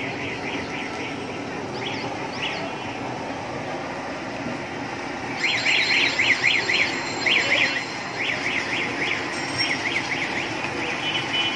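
Fritters deep-frying in a wok of bubbling oil, a steady sizzle under street noise. Over it come repeated short high chirps, each dipping and rising in pitch, several a second in bunches, loudest from about halfway on.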